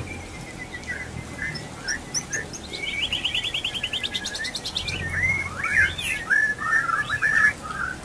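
White-rumped shama (murai batu) song: whistled phrases, with a fast run of repeated notes about three seconds in, then louder, varied whistled phrases in the second half.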